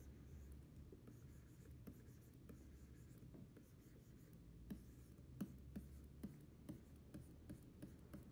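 Stylus nib faintly scratching and tapping on a pen display's screen as letters are drawn, with a string of small ticks in the second half, over a low steady hum.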